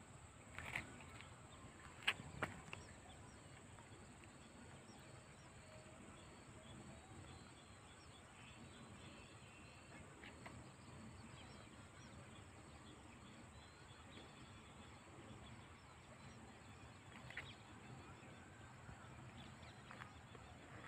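Near silence: faint open-air ambience with a few short, sharp sounds, the loudest about two seconds in and two more near the end.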